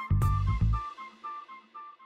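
Short music sting: a deep bass hit with a cymbal-like crash at the start, then a few light, high notes fading away.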